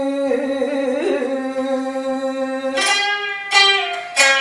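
Biwa (Japanese lute) playing between sung lines: a long held note that slides down about a second in, then three sharp strikes of the large plectrum across the strings, each ringing on with a bright, buzzing tone.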